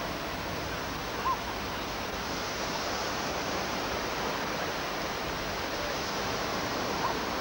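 Strong gale-force wind rushing over the camcorder microphone, a steady noisy hiss, with a brief high chirp about a second in and again near the end.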